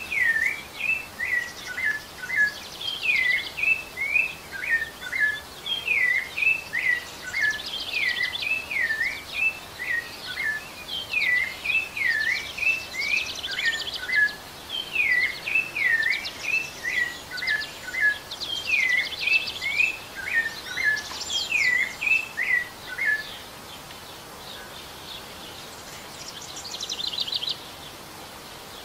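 Rufous-bellied thrush (sabiá-laranjeira) singing a long run of whistled phrases, the notes swooping down and up, until about 23 seconds in. Higher, faster trilled notes come in between the phrases, with one more trill near the end, over a faint steady hiss.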